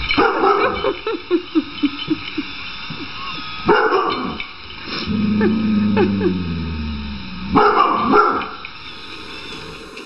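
A dog barking at a robot vacuum cleaner: loud sharp barks at the start, about four seconds in and about eight seconds in, with short yips between them and a longer low sound about halfway through.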